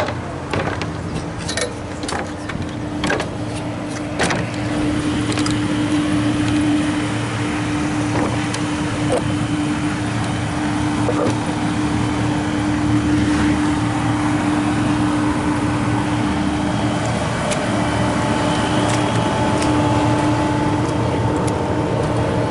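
A steady mechanical drone with a constant hum, growing louder about five seconds in, with a second, higher steady tone joining near the end; scattered knocks and clatter in the first few seconds.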